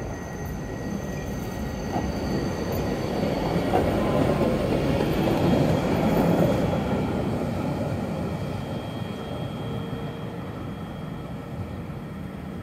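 Articulated electric tram rolling past at close range and pulling away through a track crossover. Its running noise swells to a peak about five seconds in, then slowly fades, with thin high squeal tones from the wheels.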